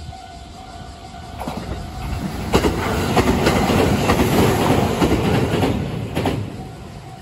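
A JR West 227 series three-car electric train passes close by, its rumble swelling and fading over about five seconds, with a few sharp clacks of the wheels over rail joints. A level-crossing warning bell rings steadily before the train arrives and is heard again as it clears.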